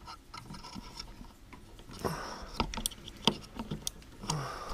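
Irregular light clicks and taps, a few each second, with brief rustles: hand tools and parts being handled during engine work.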